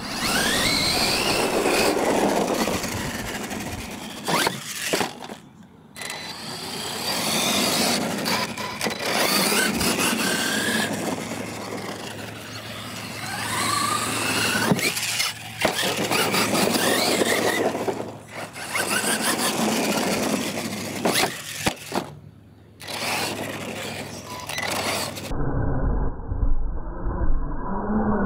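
Losi LMT radio-controlled monster truck running on a 2S battery: its electric motor and drivetrain whine, rising and falling in pitch as the throttle is worked, in several runs broken by short pauses, with tyre and chassis noise from the dirt track.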